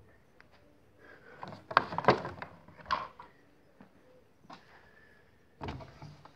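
Clicks and clacks of hands working the control knobs of a 1984 Pitsos Vario 2600 washing machine, with a cluster of loud knocks about two seconds in. A heavier knock follows near the end. The machine itself is not running.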